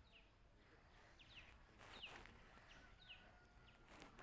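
Faint bird chirps over near silence: about half a dozen short, high calls that each fall quickly in pitch, scattered through the stretch.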